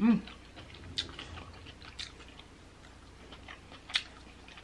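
Close-miked eating of king crab meat: a brief vocal 'mm' at the start, then a few sharp wet clicks and smacks about a second apart as the meat is dipped in sauce and bitten.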